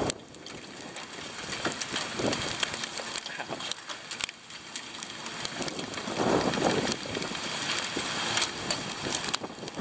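Footsteps in sandals scuffing across wet pavement and then grass, with crackling handling noise, growing louder a little past the middle. A faint steady high insect drone runs underneath.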